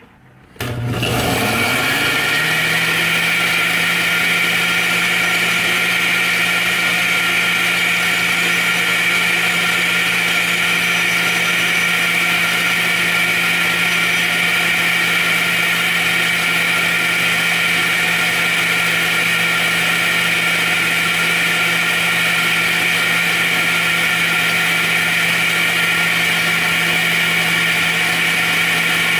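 Countertop blender with a glass jar running at steady speed, puréeing a liquid mole sauce mixture. The motor switches on about half a second in and spins up to full speed over the next couple of seconds.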